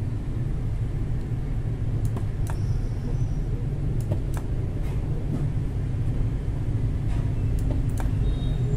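Steady low hum or rumble, with a few light clicks and taps, about seven in all, as the spot welder's copper leads and the nickel strip are handled.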